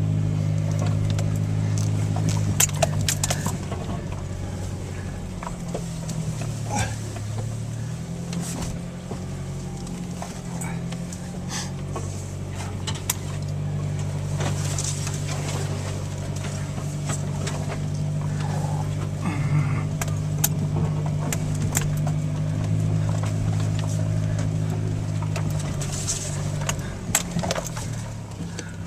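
An engine running steadily with a low hum, its pitch dipping briefly and then steadying, with scattered clicks and rattles over it.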